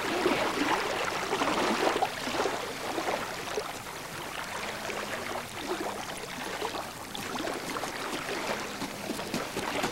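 Lake water splashing and lapping in the shallows while a hooked bass is landed, the splashing busiest in the first couple of seconds, over a steady hiss of wind and small waves.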